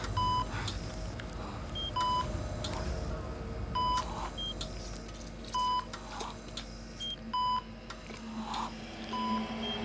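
Operating-theatre patient monitor beeping: one short electronic beep about every two seconds, over a low steady hum, with soft whooshes between the beeps. A low drone swells in near the end.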